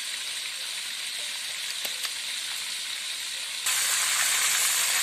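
Whole fish frying in hot oil in a wok, a steady sizzle. About three and a half seconds in it turns suddenly louder and brighter as a spatula works the fish in the oil.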